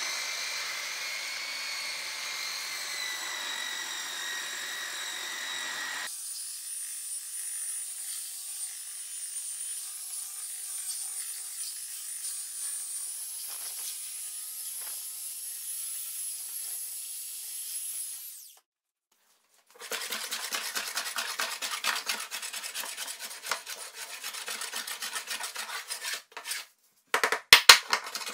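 Electric belt sander running over a wooden workbench top with a steady whine that changes pitch about six seconds in and stops after about eighteen seconds. Rapid scraping strokes of a hand plane on the wood follow, with a few sharp clacks near the end.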